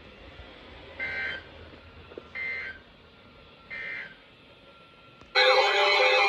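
Three short, warbling data bursts of the EAS end-of-message code (the 'NNNN' signal), about a second and a half apart, mark the end of the alert. Near the end a much louder wavering, siren-like sound starts.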